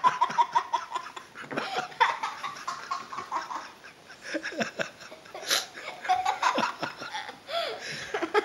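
Laughter in repeated bursts of short rapid pulses.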